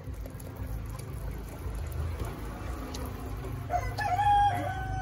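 A rooster crows once, a long call starting near the end, held steady and then falling away at the end.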